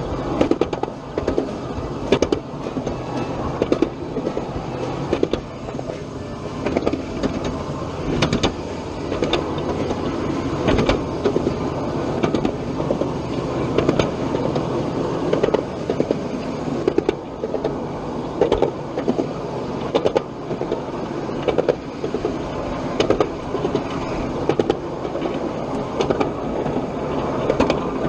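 Ride-on miniature railway train running, with a constant low rumble and hum and a steady run of sharp clicks and knocks from the wheels and track.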